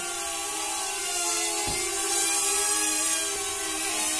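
Small DIY ESP32 quadcopter hovering, its motors and propellers giving a steady buzzing whine whose pitch wavers a little. A single short knock sounds a little under two seconds in.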